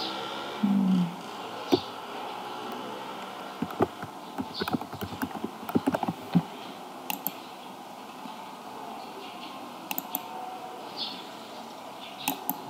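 Computer keyboard typing a short word in a quick run of key clicks, with a few separate clicks before and after, and a short low hum about a second in.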